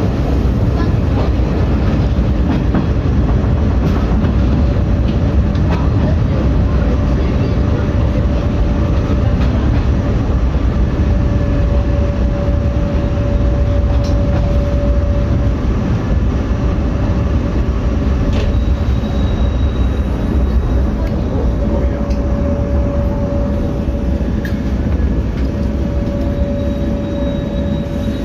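105 series electric train running: a steady, loud rumble with a thin whine that comes and goes and a few scattered clicks.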